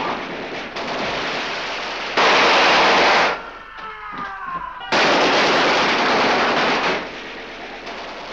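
Sustained machine-gun fire from a film soundtrack, heard as dense continuous automatic fire. It cuts off abruptly about three seconds in and comes back loud about five seconds in for two more seconds before fading.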